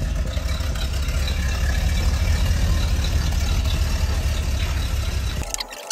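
Steady low rumble of the 1988 Chevy pickup's engine idling; it cuts off suddenly near the end.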